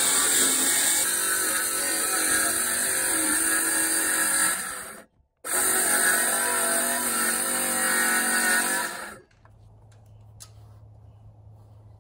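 Electric power tool running under load, cutting a groove into a wooden board, with a steady motor whine. It runs in two stretches with a brief break near the middle and cuts off about nine seconds in, followed by a few faint clicks.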